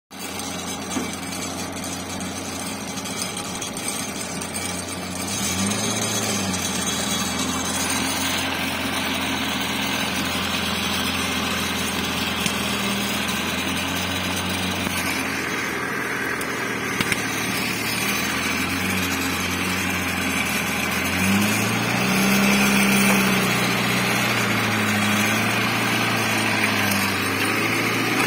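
A small tractor's engine running steadily, its pitch rising and falling as it is revved, about six seconds in and again over several seconds around twenty-two seconds in.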